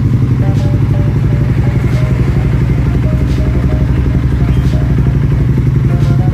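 Honda CBR150R's single-cylinder engine idling steadily through an aftermarket Akrapovic stainless-steel slip-on silencer. Faint background music is underneath.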